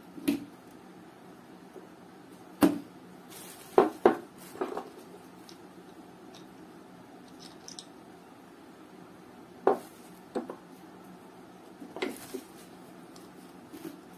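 A plastic detachable cookware handle clicking and knocking as it is handled and its locking catch is pressed: about eight sharp clicks, spread out, with a quick cluster about four seconds in.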